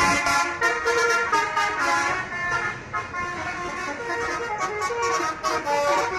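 Indonesian bus 'telolet' multi-tone horn playing a tune of short notes that step quickly from pitch to pitch.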